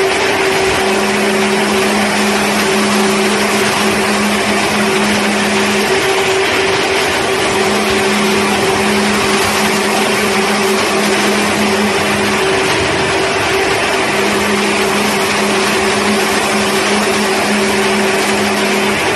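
Row of electronic cold-spark (sparkular) stage machines running: a loud, steady whirring hiss with a constant hum. A second, lower hum cuts out and comes back about every five seconds.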